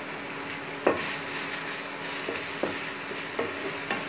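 Garlic and onion sizzling in hot oil in a frying pan while a wooden spatula stirs in red chilli powder. A sharp knock of the spatula on the pan comes about a second in, with a few lighter scrapes and taps after.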